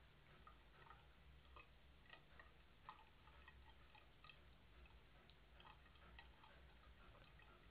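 Faint, irregular small clicks, two or three a second, of a cat lapping water from a thin stream running from a tap.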